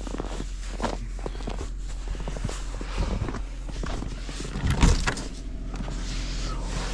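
Excavator's diesel engine idling as it warms up, a steady low hum, with scattered knocks and clicks over it and a louder thump about five seconds in.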